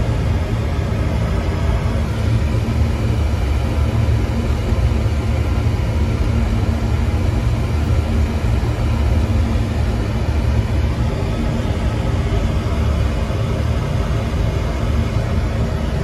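Beckett oil burner on a Slant/Fin oil boiler running, a steady low rumble with no change in pitch or level.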